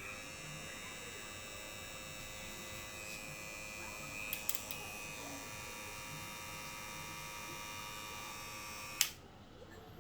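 KIEPE Power Up rotary hair clipper running with a steady motor whine, then switched off with a click about nine seconds in. A few small clicks come about halfway through.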